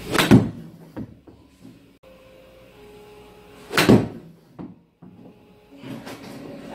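Two golf iron shots struck off a hitting mat, each a sharp crack of club on ball about three and a half seconds apart, each followed by a fainter knock.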